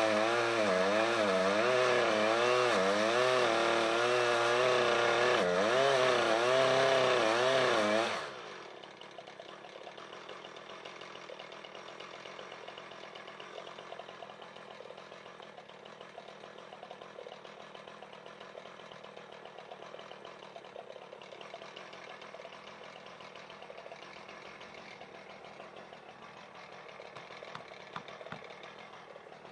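Chainsaw running flat out in a cut, its pitch wavering up and down as the load on the chain changes. It stops abruptly about eight seconds in, leaving only a faint, even background hiss.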